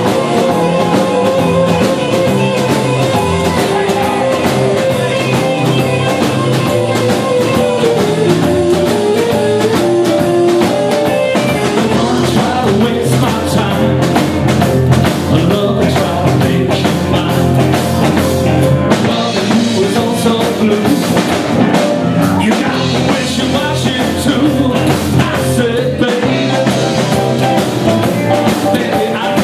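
Live rock band playing loudly: electric guitars, bass guitar and drum kit, with a man singing.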